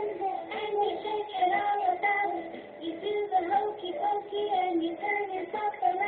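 Children's song playing: a child's singing voice over music with a bouncing melody.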